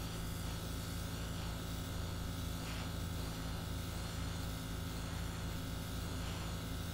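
Small airbrush compressor running with a steady motor hum and buzz, under the hiss of air and paint spraying from a gravity-feed airbrush.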